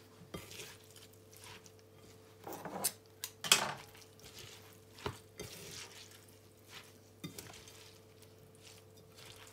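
A silicone spatula stirring a wet filling of soaked rice, chopped herbs and tomato in a bowl: irregular scrapes and soft knocks against the bowl, the loudest about three and a half seconds in. A faint steady hum runs underneath.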